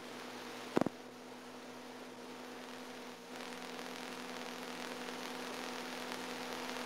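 Steady electrical mains hum over a low hiss, with one sharp click a little under a second in.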